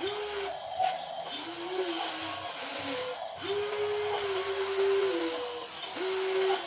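Small electric motors and gearboxes of metal RC construction toys whining with a steady hiss, the whine stepping up and down in pitch and stopping and starting as the machines are driven.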